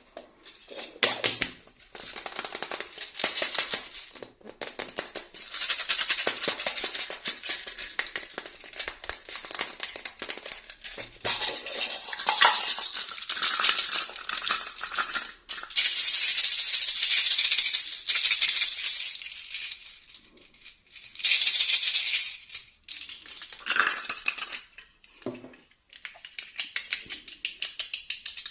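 Plastic doll packaging and small parts being handled, crinkling and rattling in dense bursts of crackle with brief pauses between them.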